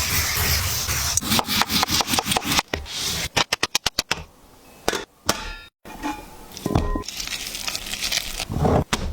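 Kitchen food-preparation sounds in quick edited cuts: a steady hiss, then a fast run of sharp strikes and knocks, then short scrapes and clinks with abrupt breaks between them.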